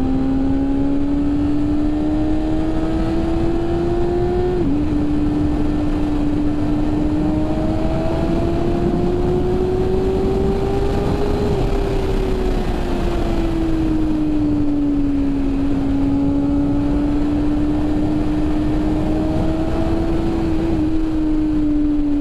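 BMW S1000RR's inline-four engine running at high revs under way, its pitch rising and falling slowly with the throttle, with a small step down about five seconds in, over steady wind rush.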